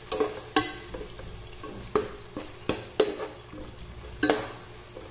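Spatula stirring sliced onions frying in oil in a pan: about six irregular knocks and scrapes of the spatula against the pan over a light sizzle.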